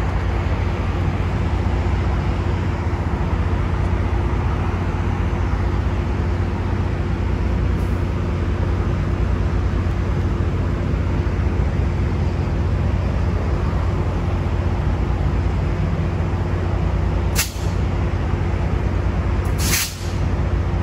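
Diesel locomotive running with a steady low drone, and two short hisses near the end, the second a little longer.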